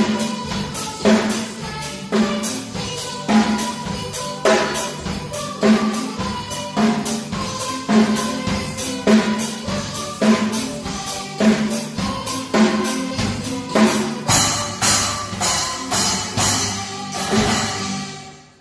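Junior drum kit played in a steady beat, bass drum and snare strikes with cymbals, the cymbal crashes brightest near the end before the playing stops.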